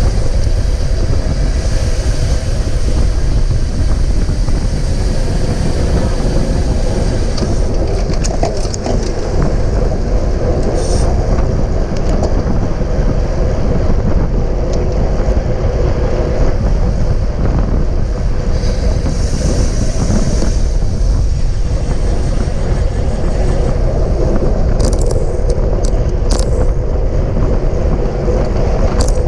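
Steady wind rushing over a GoPro microphone on a racing bicycle at speed, with a few short clicks.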